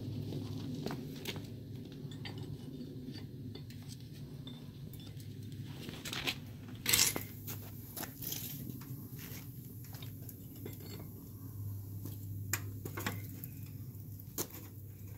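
Metal clanks and clinks as the lid and tools of a small metal-casting furnace are handled, the loudest about seven seconds in, over a steady low hum from the furnace burner running to heat another melt.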